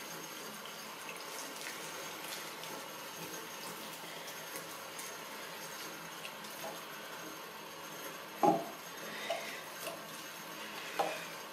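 Water running steadily from a mixer tap into a bathroom washbasin. A couple of short, sudden louder sounds stand out in the last few seconds, the first the loudest.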